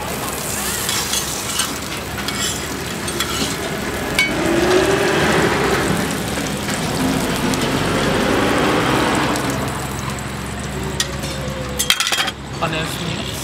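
Roti dough frying in oil on a round flat griddle, a steady sizzle with the scrape of a metal spatula, a little louder in the middle. A few sharp clicks near the end.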